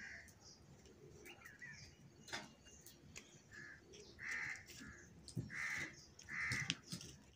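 Crow cawing: about six short calls, most of them bunched in the second half, with a few faint knocks between them.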